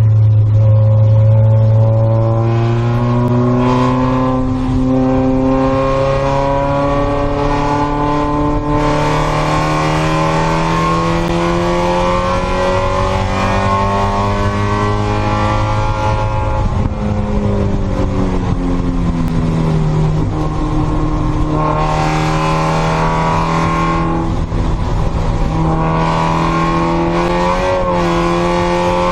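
Spec Miata race car's four-cylinder engine heard from inside the cockpit, pulling up through the revs under throttle. About two-thirds of the way through it drops in pitch as the car slows for a corner, then climbs again near the end. A steady hiss from the wet track sits under the engine after the first several seconds.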